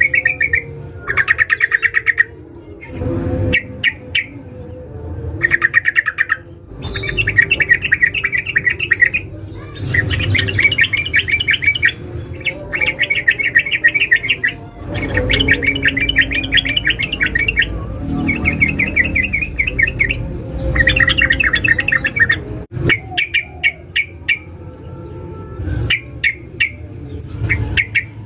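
Yellow-vented bulbul (trucukan) calling in rapid chattering trills: bursts of fast repeated notes, each lasting a second or two, again and again. This is the female's call to a male, the kind used to lure wild bulbuls.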